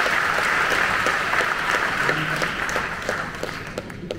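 Audience applauding in a concert hall, the clapping thinning out and fading over the last second or so.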